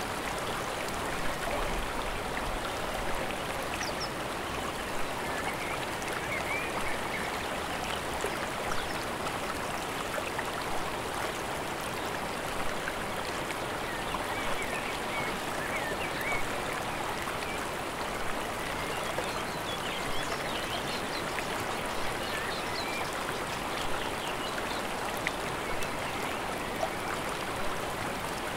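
Steady rush of water from a flowing mountain stream, with brief louder splashes now and then.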